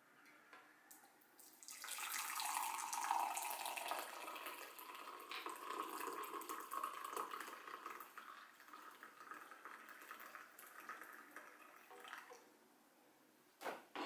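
Hot coffee pouring in a steady stream from a stainless-steel thermal carafe into a mug, starting about two seconds in and stopping shortly before the end, its pitch rising a little as the mug begins to fill. A light knock follows near the end.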